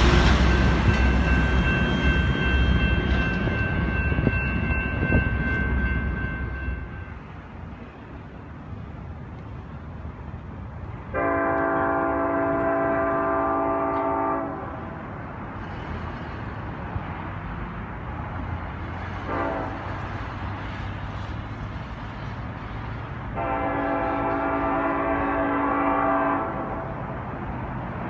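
Railcars of a passing train rumbling by for the first several seconds, with faint steady high tones over the rumble. Then a distant diesel locomotive's multi-note air horn sounds a long blast, a short toot and another long blast, a grade-crossing warning as the train approaches.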